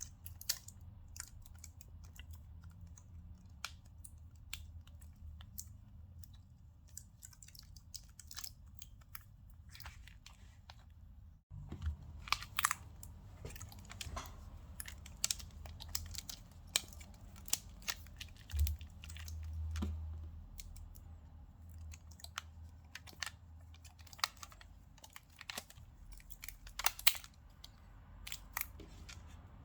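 Scattered small clicks, taps and crackles of hands handling a smartphone's back panel and its adhesive sticker as the cover is stuck back on, over a low steady hum.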